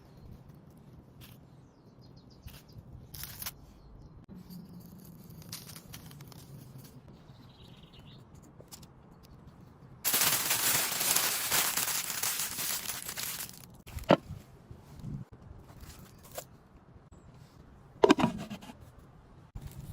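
Outdoor cooking sounds: scattered clicks, knocks and scrapes of food and utensils being handled. About halfway through, a loud steady hiss starts abruptly, lasts three to four seconds and cuts off suddenly.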